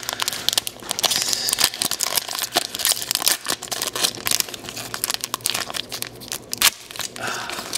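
Foil wrapper of a Japanese Pokémon card booster pack crinkling and tearing as it is opened by hand, a dense run of crackles and rustles.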